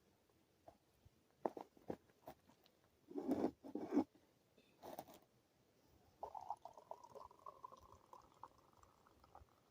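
A few light knocks and clatters of handling, then liquid poured into a cup, a faint trickle rising slightly in pitch as the cup fills.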